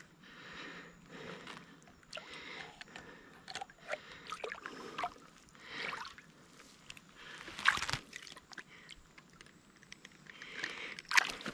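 Water sloshing and splashing irregularly as a large Murray cod is held in the shallows to revive it before release, with a sharp, loud splash about two-thirds of the way through and another near the end.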